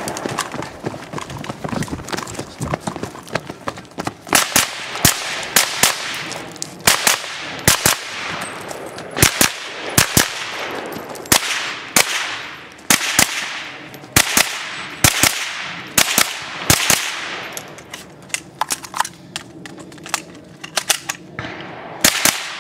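GSG-5 .22 LR semi-automatic rifle firing a long string of sharp shots, mostly in quick pairs, starting about four seconds in.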